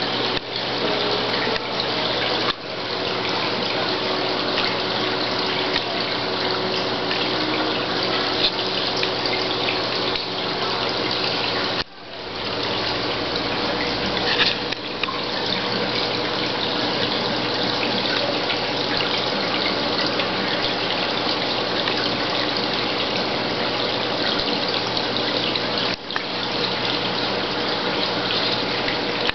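Steady rushing and splashing of circulating water in a reef aquarium, like an overflow or sump return, with a faint steady hum beneath it. It dips briefly a few times, most deeply about twelve seconds in.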